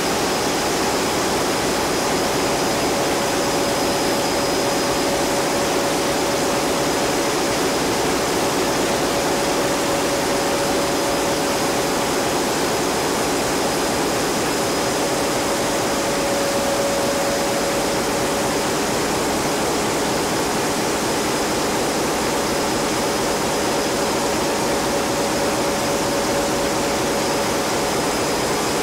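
Loud, steady machinery noise of a ship's engine room, its engines and auxiliary machinery running together, with a steady high whine and a mid-pitched hum held over the din.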